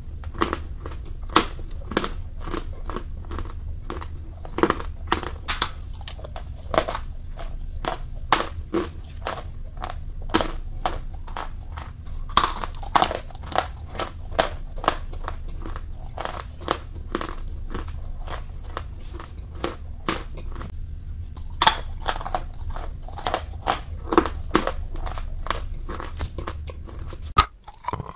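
Close-miked crunching and chewing of edible chalk: rapid, sharp crunches as pieces are bitten and ground between the teeth, over a steady low hum that cuts out near the end.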